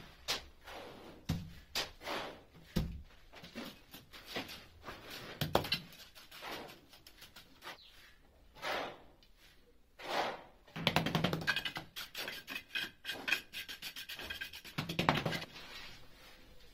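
Irregular knocks and taps of a wooden batten being set and pressed against ceramic wall tiles, with a dense rapid rattle a little past the middle.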